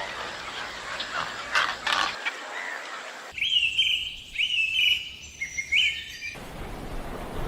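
A bird calling: four short chirps, each with a quick pitch slide, just under a second apart in the middle of the stretch, over a light background hiss.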